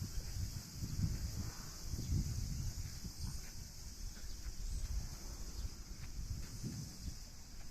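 A steady, high-pitched insect chorus keeps up throughout, over a louder, low, uneven rumble that swells and fades.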